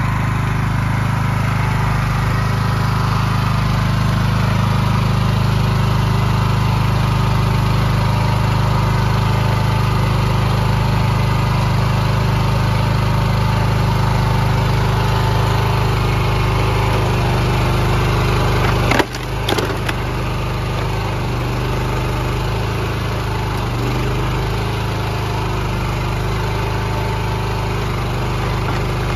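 Small gas engine of a hydraulic log splitter running steadily while the wedge is forced into a western hemlock round. About two-thirds of the way through, the wood gives way with one sharp crack.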